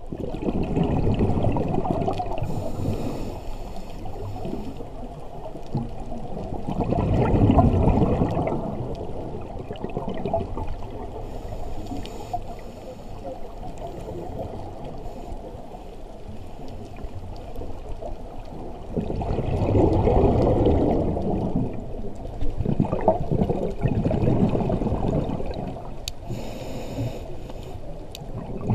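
Underwater sound heard through a camera housing: a steady muffled water rush, swelling several times with the gurgling bubbles of a scuba diver exhaling through a regulator. The loudest swells come at about 7 to 8 s and 19 to 21 s.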